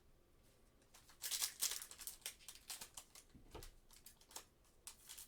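Trading card pack wrapper crinkling and rustling in the hands as it is opened, a quick run of crackles starting about a second in.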